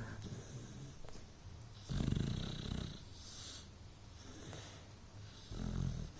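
Beagle snoring in its sleep: two low, fluttering snores about three and a half seconds apart, with softer breathing in between.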